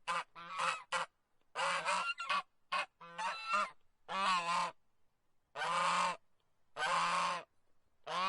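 Domestic geese honking: a quick run of short honks over the first few seconds, then single longer honks about every second and a half.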